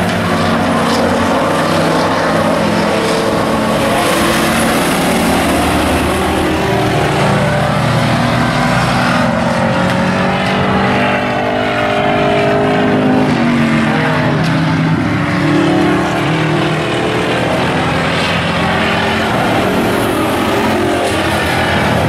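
Engines of several stock pickup race trucks running hard at racing speed, loud and continuous, with pitch rising and falling as trucks go by near the middle.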